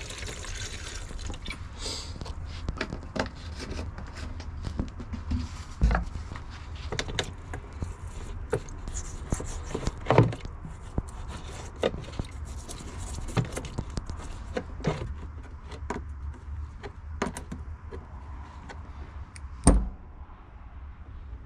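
Scattered clicks and knocks of hand-tool work on an old tractor, with three louder knocks about six, ten and twenty seconds in, over a low steady hum.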